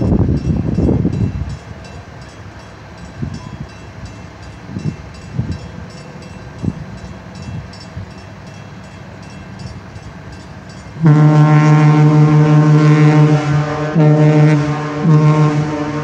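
Ship's horn of the SS Alpena sounding one long, steady, deep blast that starts suddenly about eleven seconds in and lasts about five seconds.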